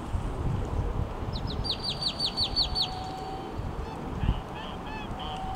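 Domestic geese calling with short honks toward the end. About a second and a half in, a small songbird sings a quick run of about eight falling notes, all over a steady low rumble.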